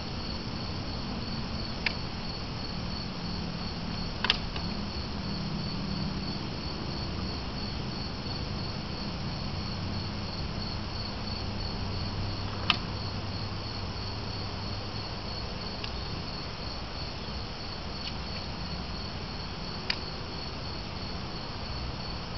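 Insects chirping steadily in a high, evenly pulsing drone, with four sharp clicks scattered through.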